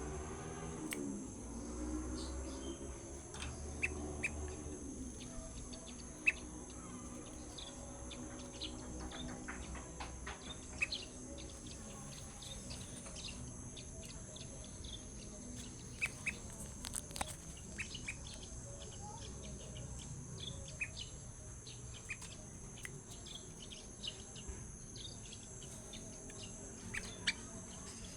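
Young sooty-headed bulbul (kutilang) giving short, scattered chirps, with a steady high buzz behind them.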